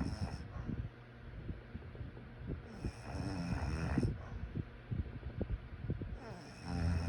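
A sleeping person snoring, one snore about every three and a half seconds: one ends just after the start, a full one comes in the middle, and another begins near the end. Each snore lasts about a second and a half, with a low rumble, and soft crackles come on the breath between them.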